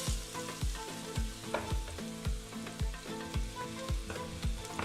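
Diced onion sizzling in hot olive oil in a frying pan, the hiss strongest at first, over background music with a steady beat.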